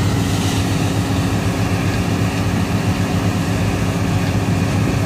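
Combine harvester's diesel engine and threshing machinery running steadily at working speed, a constant mechanical drone with a low hum.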